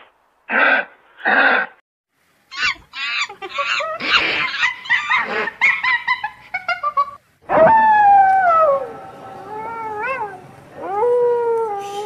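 A sheep bleats twice. Then comes a run of rapid chattering and hooting calls from chimpanzees. From about halfway, several long howls slide down in pitch.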